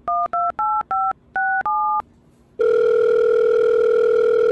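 Mobile phone keypad tones as a number is dialled: about six quick two-note touch-tone beeps, then after a short gap one ring of the outgoing call's ringing tone, a steady tone for about two seconds.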